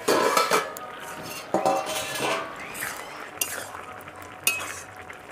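A stainless-steel lid clattering as it is lifted off a steel pot and set down, then a metal spoon stirring and scraping in the pot of boiled potato, aubergine and banana flower, with a few sharp clinks against the rim.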